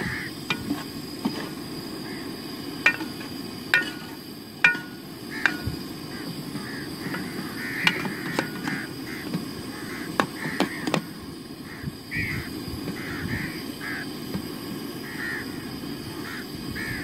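Crows cawing again and again over a low steady rumble, with several sharp knocks that ring briefly, most of them in the first five seconds.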